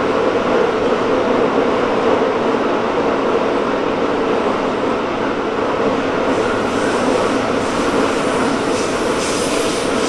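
Interior running noise of a Tokyo Metro 16000 series subway car holding about 57 km/h in a tunnel: a steady rumble of wheels on rail, with a higher hiss joining about six seconds in.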